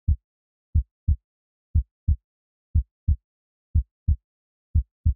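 Heartbeat sound effect: a double low thump, lub-dub, about once a second, with dead silence between beats.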